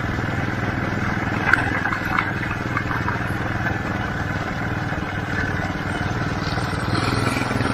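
Steady low motor hum, with a few light knocks about one and a half and two seconds in.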